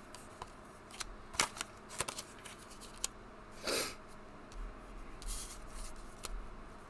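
Paper message cards being handled: drawn from a deck and laid down on the table one after another, with a few sharp card snaps and taps and one short slide of card over card just past the middle.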